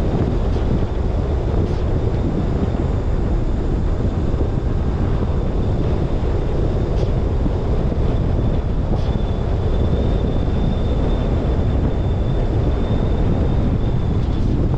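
Steady wind rumble on the microphone of a roof-mounted GoPro Hero10 as the car drives, mixed with the car's road noise. A faint, thin high tone runs through the second half.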